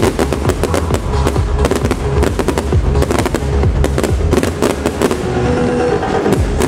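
Fireworks shells bursting and crackling, many bangs in quick succession, over loud trance music with a heavy bass played through the show's loudspeakers.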